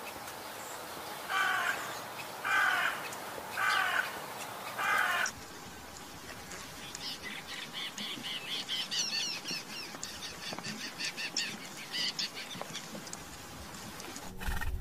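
Bird calls. A large bird gives four loud, harsh calls about a second apart, then many birds chirp quickly at a higher pitch.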